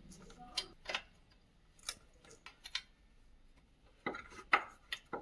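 Metal hand tools clinking against metal parts in a car's engine bay, a few separate sharp clinks followed by a louder cluster about four seconds in.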